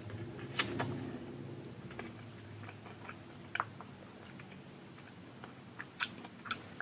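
Close-up chewing of a mouthful of sushi roll, with a few sharp wet clicks scattered through it.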